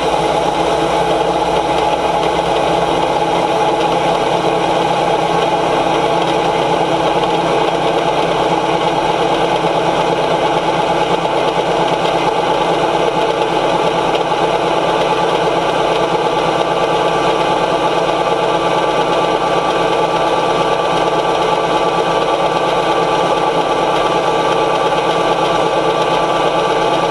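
John Deere 9500 combine running steadily while harvesting corn: a loud, even machine sound with several steady tones held over a dense rumble.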